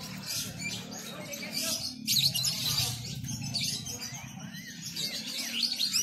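Caged songbirds chirping and warbling over one another in many quick high phrases, over a low steady murmur.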